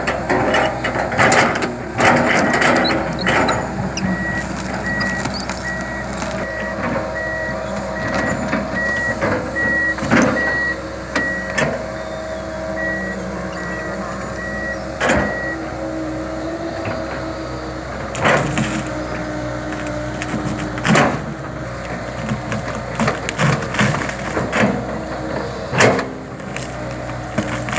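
Diesel engine of a Komatsu PC200LC tracked excavator running steadily while it works, with sharp knocks and cracks at several moments. A rapid, evenly pulsing beep sounds over the first half and stops about halfway through.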